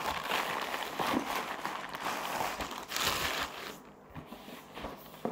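Plastic courier mailer bag crinkling and rustling as a box is pulled out of it. The rustling dies down about three and a half seconds in, leaving a few small handling clicks.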